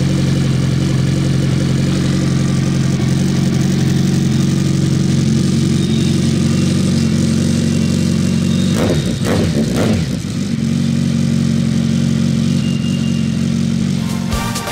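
Suzuki Hayabusa's inline-four engine idling steadily through an M4 slip-on exhaust with baffles fitted, blipped twice about nine and ten seconds in, the pitch rising and falling quickly each time.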